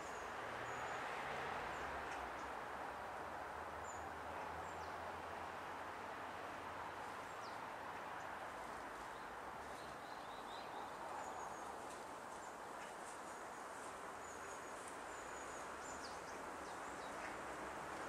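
Steady outdoor background hiss with small birds giving scattered brief, high chirps.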